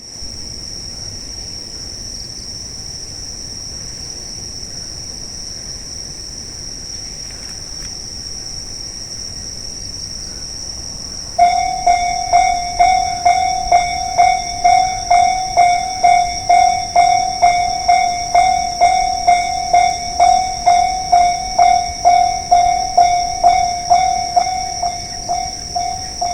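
Japanese railway level-crossing warning alarm switching on about eleven seconds in: a loud bell-like ding repeating about twice a second, signalling that a train is approaching. A steady high-pitched tone sounds throughout.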